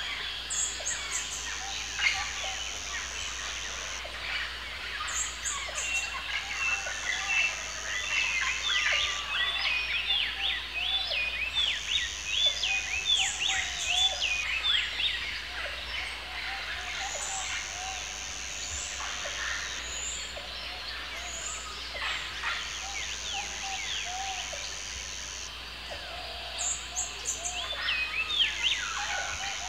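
Forest ambience of many birds chirping and calling, busiest in the middle, over a high steady buzz that starts and stops every few seconds.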